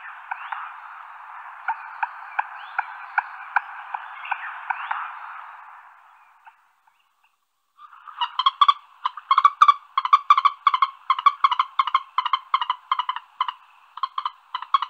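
Animal calls in two stretches: a rattling chorus of clicks that fades out about six seconds in, then, after a gap of about a second, a louder series of rapid pulsed calls, several a second.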